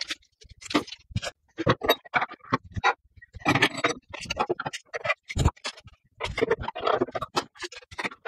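Irregular knocks, clanks and scrapes of steel tubing being handled and set in the vise of a metal-cutting saw.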